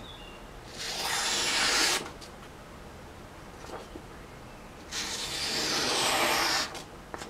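Bark River Lil Canadian's A2 steel blade slicing through a sheet of paper twice, each cut a rasping hiss of one to two seconds, the second one longer. A paper test of the freshly sharpened edge.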